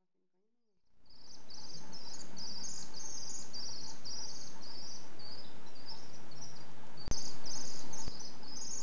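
Shrill, high-pitched chirping calls in irregular clusters over a steady hiss, fading in about a second in, with a sharp click near the end.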